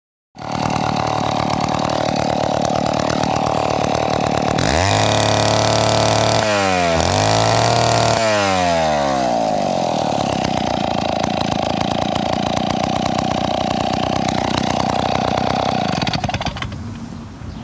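David Bradley 758G chainsaw's Power Products AH58 95 cc two-stroke engine idling, then revved up twice, at about five and seven seconds in, before settling back to a steady idle; the level falls near the end. The saw runs on a freshly rebuilt carburetor and newly set points and is not yet tuned in.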